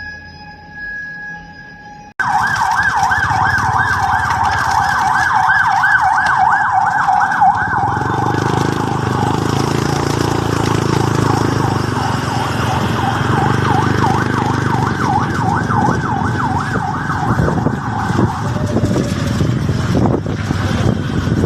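Fire truck siren in a rapid yelp, its pitch rising and falling several times a second, starting abruptly about two seconds in. A heavy vehicle's engine rumbles beneath it from about eight seconds in, and the siren fades out near the end, leaving engine and traffic noise.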